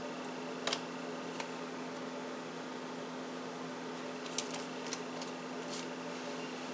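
Steady low room hum with a few short, light clicks and taps: one about a second in, another soon after, and a small cluster a little past four seconds.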